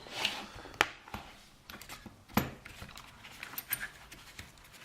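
Small metal clicks and taps from a lock cylinder's parts being handled while it is taken apart, with two sharper clicks about a second and two and a half seconds in.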